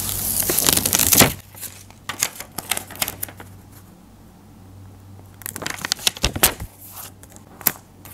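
Paper backing peeled off a paper cutout with a loud rustling tear in the first second, then scattered soft paper crackles and taps as the cutout is pressed down onto a sketchbook page.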